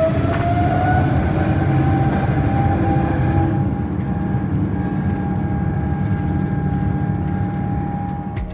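Boeing 777-300ER's GE90-115B jet engines at takeoff thrust, heard from inside the cabin through the takeoff roll and lift-off: a loud, steady rumble with a whine that rises and levels off about a second in.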